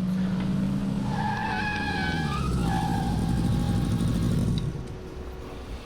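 A motor vehicle running, with squealing tyres as it skids, then cutting off sharply near the end.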